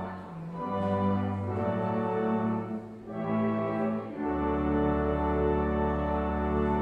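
Organ playing slow, held chords, changing every second or so; a low bass note comes in about four seconds in and holds under the final chord.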